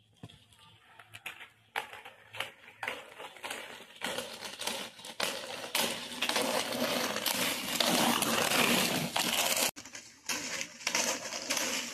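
Inline skate wheels rolling on rough asphalt: scattered clicks at first, then a steady rolling noise that grows louder from about five seconds in and breaks off briefly near ten seconds.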